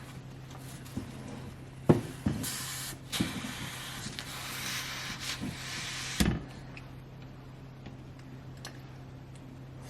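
Kitchen work: a few knocks of utensils or pots, and a steady hiss of about four seconds that starts and stops abruptly and ends with a clunk. A low steady hum runs underneath.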